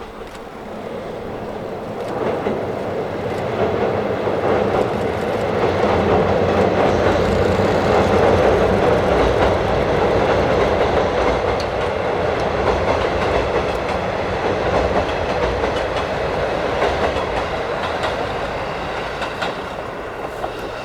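A four-car set of KiHa 40 and KiHa 48 diesel railcars running past, with wheels clattering over the rail joints under the diesel rumble. The sound builds over the first several seconds, holds loud and eases off near the end.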